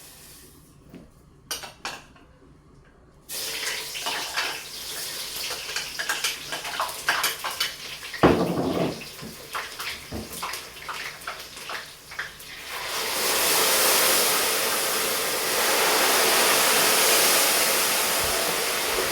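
Food frying in hot oil in a pot: a crackling sizzle starts suddenly about three seconds in, with a clatter of a pot or utensil near eight seconds, then grows louder and steadier from about thirteen seconds.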